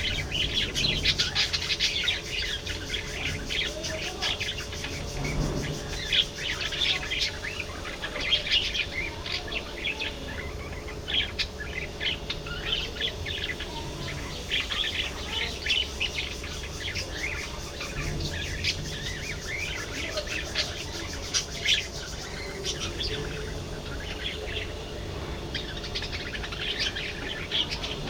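A flock of budgerigars chattering, many short, rapid chirps overlapping without pause, over a steady low hum.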